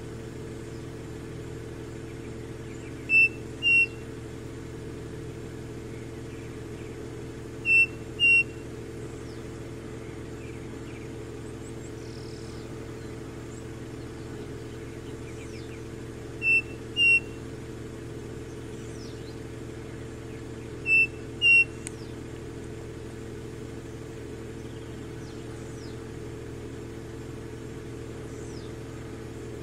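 Striped cuckoo singing its two-note whistled song four times, each a pair of clear whistles about half a second apart, with a steady low hum underneath.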